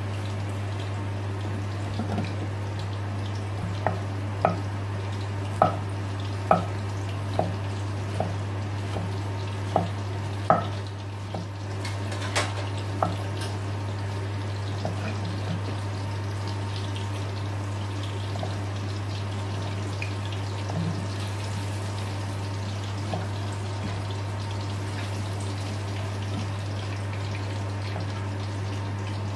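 A kitchen knife slicing vegetables on a cutting board: irregular sharp taps, about one a second, thickest in the first half, over a steady low hum.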